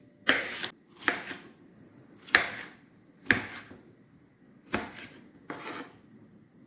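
A knife cutting into a red bell pepper to take out its seeds: six short separate strokes, roughly a second apart.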